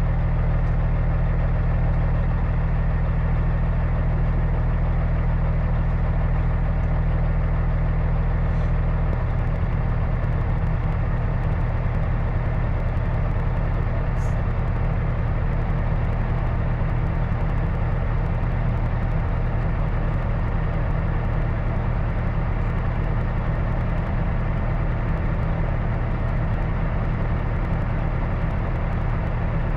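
Heavy truck diesel engine running steadily, its low note changing slightly about nine seconds in.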